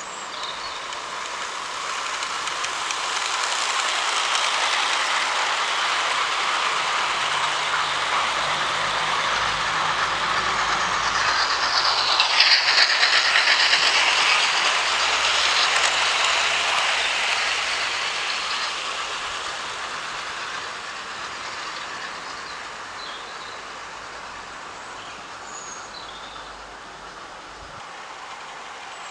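A 00-scale model train running over the garden layout's track. The rush of wheels and motor builds up, is loudest around the middle as the train passes closest, then slowly fades away.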